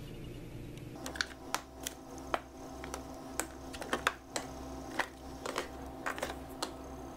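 Spice containers on a cabinet shelf knocking and clicking against each other as a hand rummages through them and picks one out. The clicks are small and irregular, begin about a second in, and sit over a faint steady hum.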